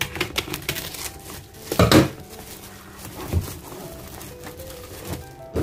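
Scissors snipping and slicing through packing tape on a plastic-wrapped cardboard parcel, with plastic crinkling and the box knocking on the table as it is handled. Quick clicks come in the first second, the loudest noise just before two seconds in, and a duller knock a little later.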